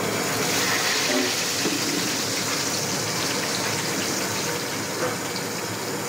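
Marinated quail pieces deep-frying in a kadai of hot oil: a steady sizzling hiss as more pieces are dropped in.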